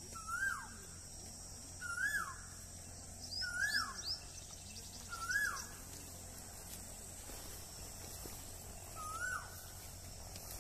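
Asian koel calling: a short call that rises and then drops sharply, repeated five times about every second and a half, with a longer pause before the last.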